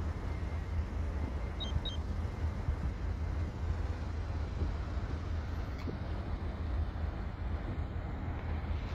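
Steady rumble of city road traffic with cars passing. About two seconds in, two short high-pitched beeps.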